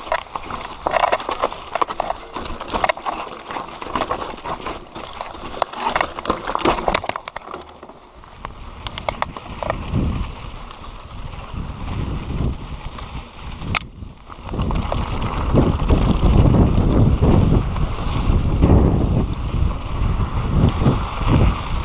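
Mountain bike rattling and clattering over a rough dirt trail. From about two-thirds in, wind rushes over the microphone as the bike picks up speed on a smoother grassy track.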